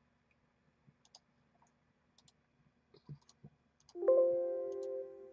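Faint computer mouse clicks, scattered through the first few seconds. About four seconds in, a chime-like tone of several pitches rings out suddenly and fades over about two seconds.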